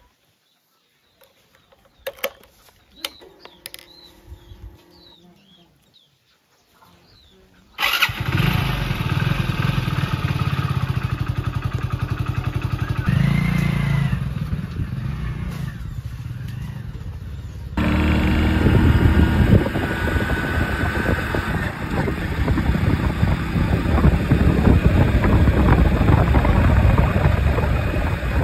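Hero single-cylinder commuter motorcycle: a few faint clicks and taps, then about eight seconds in the engine starts and runs steadily. From about two-thirds of the way in it is heard running while being ridden along a road.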